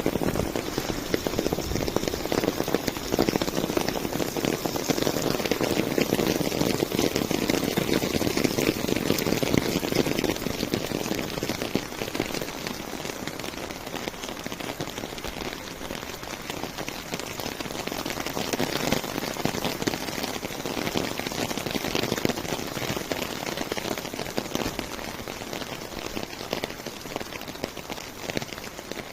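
Rain falling, a dense mass of drops striking a surface, a little heavier over the first twelve seconds or so and easing slightly after.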